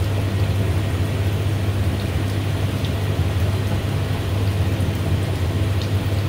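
Pot of soy-based lo-sui braising liquid simmering with beef shank in it: a steady bubbling hiss over a steady low hum.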